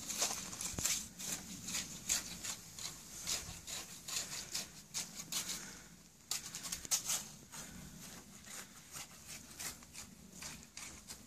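Footsteps crunching on loose gravel, an irregular run of short crunches that is busiest in the first half and thins out later.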